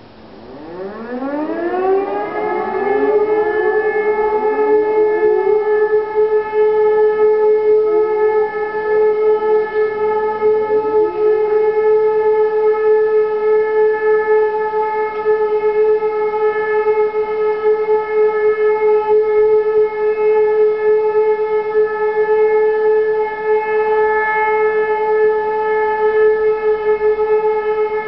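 Civil defence sirens winding up one after another, each rising in pitch, then merging into one steady continuous tone: the German all-clear (Entwarnung) signal.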